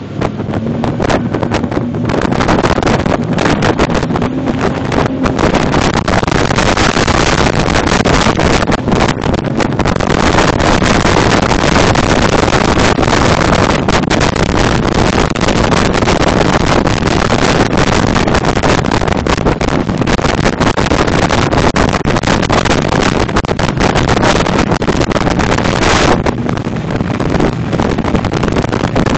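Heavy wind buffeting a phone's microphone on a rigid inflatable boat at speed, with the boat's engine and rushing water under it. The loud, steady rush eases a little about 26 seconds in.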